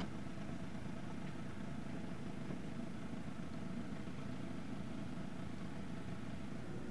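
A sailboat's engine running steadily as the boat motors along, an even low hum that does not change.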